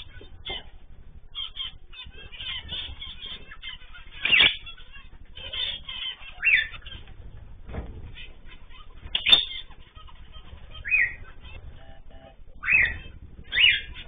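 Small aviary birds, zebra finches among them, chirping continually, with a few louder short falling calls in the second half and two sudden sharp sounds at about four and nine seconds in.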